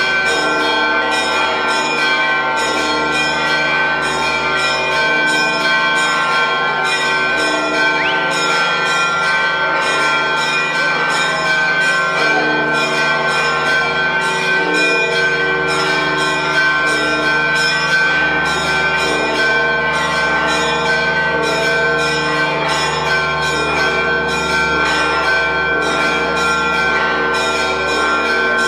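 Church bells ringing in a continuous rapid peal, several bells struck at about three strokes a second over their lingering tones.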